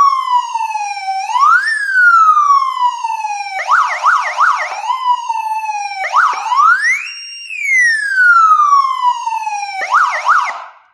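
Senken 50 W motorcycle siren speaker sounding an electronic siren. Its tone sweeps up quickly and falls slowly in long wails, broken twice by a short run of rapid yelps, about three to four sweeps a second. It cuts off abruptly near the end.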